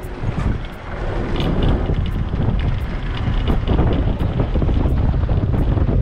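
Wind buffeting the microphone of a moving car, with the car's low road rumble underneath. It swells over the first second and then stays steady and loud.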